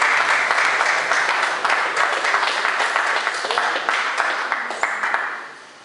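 Small crowd of spectators applauding after a table tennis rally, dying away near the end.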